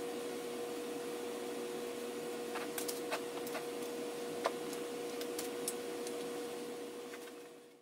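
1995 Harbor Breeze Summit ceiling fan running, a quiet steady motor hum with one steady tone and a few faint clicks, fading out near the end.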